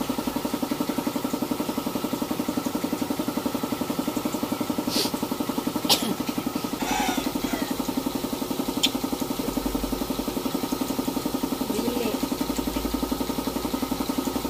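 An engine idling steadily with an even, fast pulsing beat, with a few sharp clicks about five, six and nine seconds in.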